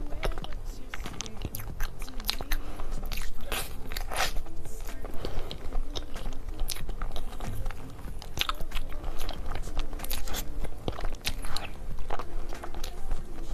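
Close-miked eating of a chocolate-glazed cake: a spoon scooping, then biting and chewing, with many sharp crunchy clicks throughout.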